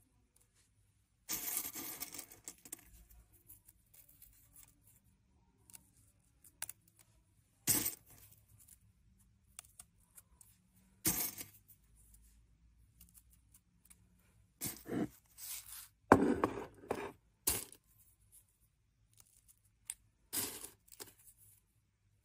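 Dry in-shell sunflower seeds rustling and clicking as they are handled and pushed into a raw potato: scattered short rustles and sharp clicks with quiet gaps, a longer rustle about a second in and a denser run of them past the middle.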